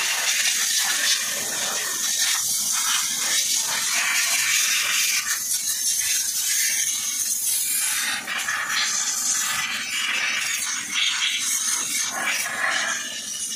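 Compressed-air spray gun hissing steadily as it blasts cleaning solvent onto an engine tappet cover, with a few brief dips in the hiss.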